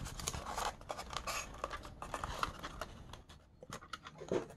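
Styrofoam packing insert being handled: irregular scraping, creaking and small clicks of foam against the model locomotive and fingers, going quieter for a moment, then a light knock near the end.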